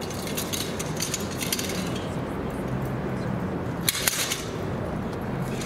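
Metallic jingling and clinking of cavalry kit, with a sharper cluster of clinks about four seconds in, over a steady low background hum.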